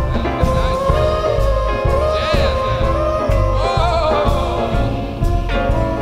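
Live 1920s-style swing jazz band playing: long held melody notes, wavering around the middle, over a steady beat of bass and drums.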